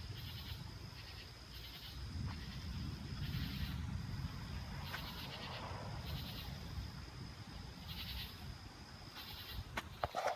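A night insect chorus: chirps pulsing about once a second over a steady high trill. About two seconds in, a low rumble of distant thunder swells and fades under it.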